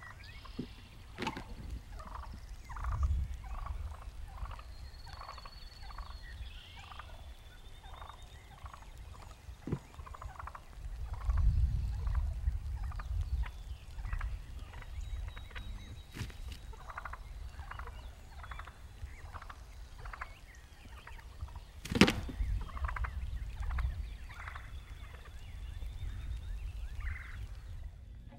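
Wild turkeys calling near the microphone: a long series of short clucking notes repeated every fraction of a second. Low rumbles come and go, and a single sharp knock sounds about two thirds of the way through.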